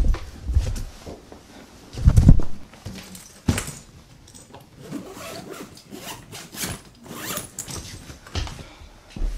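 A person moving about close up: a run of short rustling swishes like clothing shifting. There is a heavy low thud about two seconds in, another sharp stroke a moment later, and a low thud near the end.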